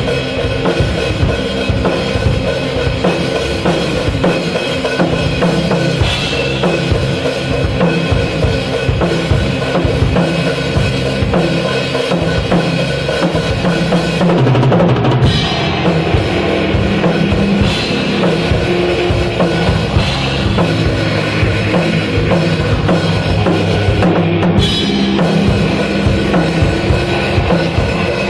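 Rock band music with a full drum kit, bass drum and snare keeping a steady beat under sustained instruments, with no singing.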